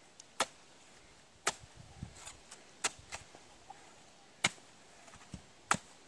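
Machete chopping into the husk of a fresh green coconut to open it: five sharp strikes, roughly one every second and a half, with a few lighter knocks between them.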